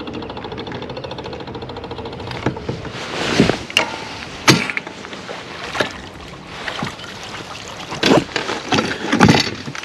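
Bow-mounted electric trolling motor running with a steady hum and whine, which cuts out about two and a half seconds in. It is followed by a string of irregular clunks and knocks from the foot pedal and motor being worked, the sign of the pedal's steering cables coming loose.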